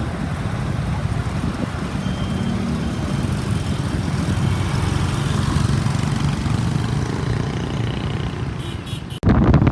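Motorbike engine and surrounding traffic heard from a moving scooter, a steady low hum. About nine seconds in it cuts abruptly to loud wind buffeting the microphone.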